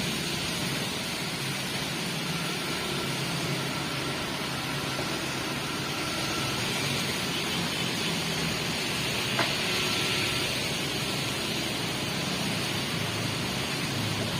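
Diesel engine of heavy machinery running steadily, with a sharp click or knock about nine seconds in.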